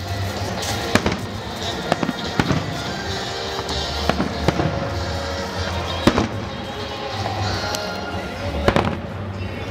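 Aerial firework shells bursting overhead in sharp bangs, one every second or two, over a steady crackle and rumble. Music plays throughout.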